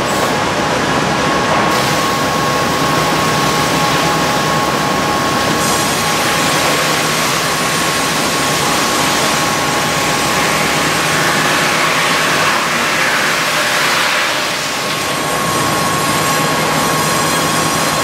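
Hardwood sawmill headrig line running: loud, steady machinery noise from the log carriage, log deck and band saw, with a steady high whine running through it.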